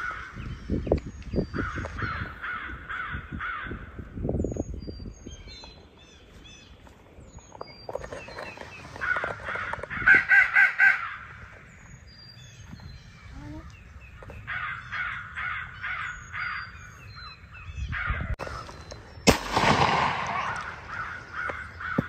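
Crows cawing in several bursts of rapid repeated caws, loudest about ten seconds in, with a sharp crack near the end.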